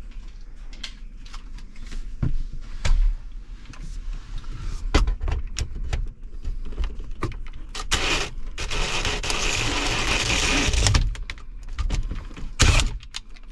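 Cordless drill with a step bit boring through the plastic overhead console: several clicks and knocks of handling, then about three seconds of steady drilling, and a sharp knock near the end.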